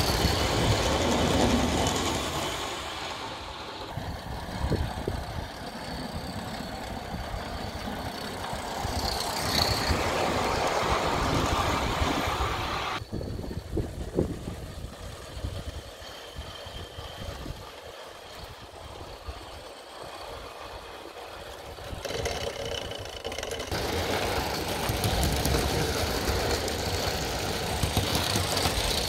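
Aster Gauge 1 live-steam model of the SBB E3/3 'Tigerli' tank locomotive running with its train of coaches. The sound is its small steam engine's exhaust and the wheels running on the rails, louder in the stretches where it passes close.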